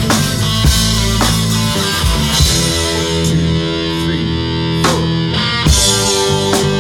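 Live rock band playing an instrumental passage, with electric guitars over a drum kit and drum hits every second or so.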